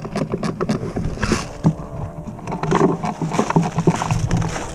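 Airsoft rifle firing a run of single shots, a string of sharp, irregularly spaced cracks over a low rumble of wind on the microphone.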